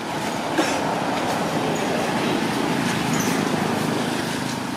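A steady rumbling noise, mostly low and mid-pitched, that swells about half a second in and eases off near the end, like a passing vehicle.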